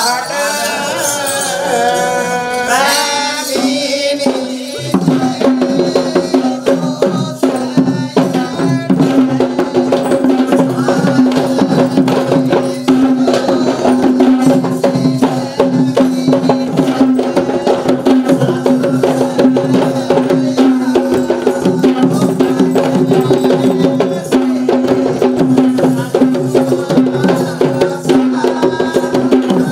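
A chanted verse ends in the first few seconds. Then a group of Kandyan geta bera drums starts playing fast, dense rhythms, with a steady held tone underneath.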